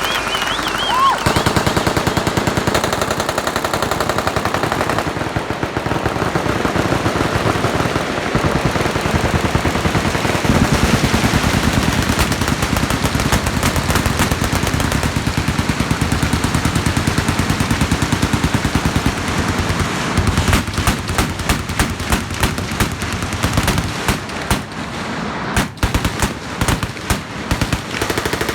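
Many machine guns firing at once in dense, unbroken automatic fire, thinning near the end into separate short bursts.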